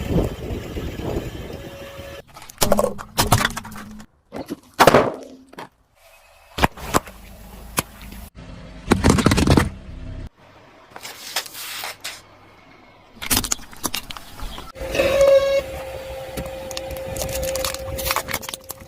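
Objects being crushed under a car tyre: a string of crunches, cracks and squashing noises, each clip cut off abruptly, with a couple of short silent gaps between clips. A steady tone runs through the last few seconds.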